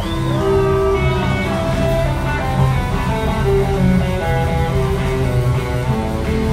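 Live rock band playing, with an electric guitar taking a lead of quick stepped runs over the full band.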